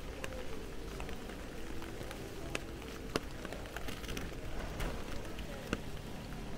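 Steady rain falling on wet pavement, with scattered sharp drops tapping close by.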